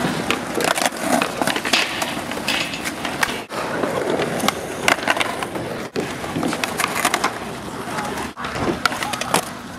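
Skateboards rolling on asphalt, with many sharp clacks of tails popping and boards landing as flatground tricks are tried.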